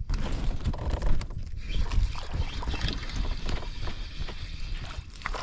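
Steady rumbling wind and water noise on a fishing kayak, with a few light knocks near the end.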